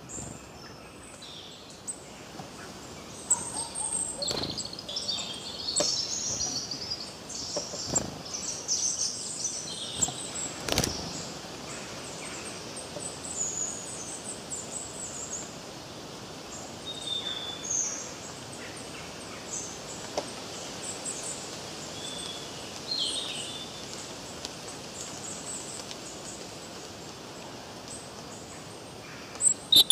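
Birds chirping in short high calls over a steady outdoor hiss. The calls are busiest in the first ten seconds and thin out after.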